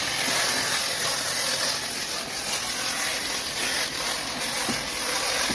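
Oxy-acetylene welding torch flame hissing steadily.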